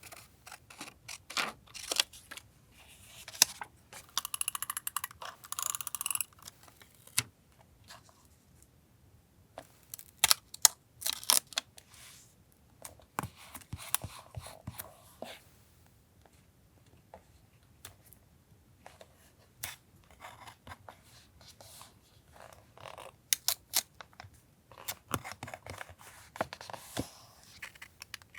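Paper collage handling: paper rustling and crinkling with many light clicks and taps, and a longer stretch of dense rustling about three to six seconds in.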